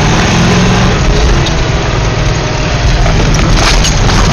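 Truck engine running hard as it drives through mud, heard from inside the cab, with mud spattering against the windshield and body. Sharp knocks and clatters come a few times, mostly in the second half, as the truck jolts along.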